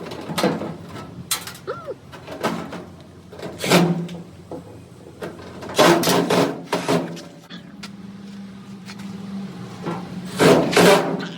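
A series of knocks, clunks and scraping as dryer parts are handled and fitted back together. A low steady hum comes in about eight seconds in.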